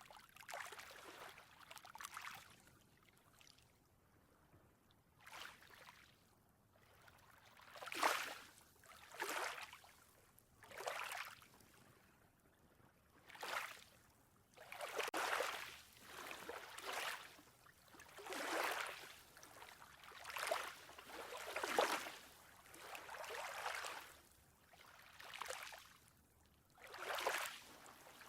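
Ocean water lapping and splashing, in short uneven washes every second or two.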